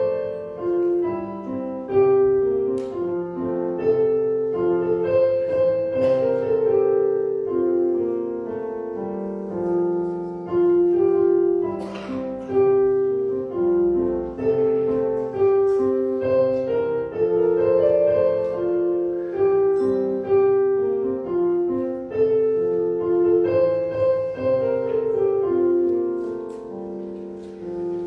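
Piano playing a slow melody over chords.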